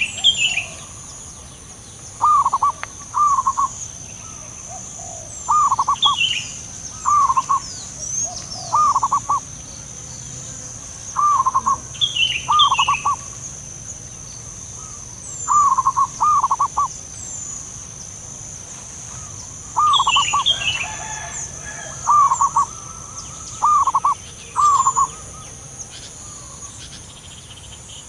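Zebra doves calling: bursts of quick, stuttering coo notes, a few notes per burst, repeated every second or two with a few longer gaps.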